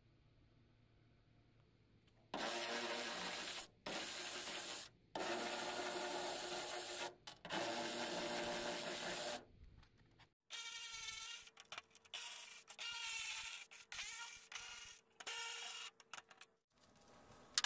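Cordless electric ratchet run in repeated bursts of one to four seconds, driving out the bolts on a VW Beetle door's inner panel. In the later, shorter bursts the motor whine rises in pitch as it spins up.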